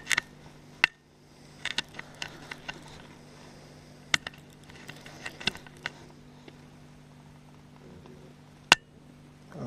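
Scattered sharp knocks and clicks, some in quick clusters and one loud knock near the end, as of gear bumping around in a john boat, over a faint steady hum.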